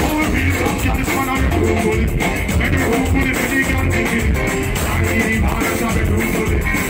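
Live band music through a stage sound system, with drums, guitar and a heavy bass line pulsing regularly.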